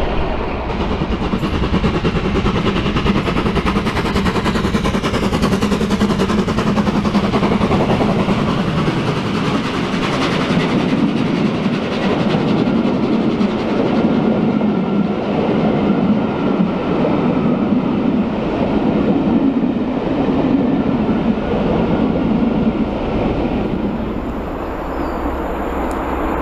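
Rake of passenger coaches on a steam-hauled train running past close by: a steady, loud rumble of steel wheels on the rails. The sound eases and changes near the end.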